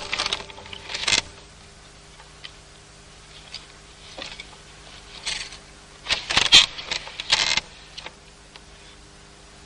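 Wooden hand loom clattering and rattling as it is worked, in short bursts: a couple near the start, then a closer run of clacks about five to seven and a half seconds in.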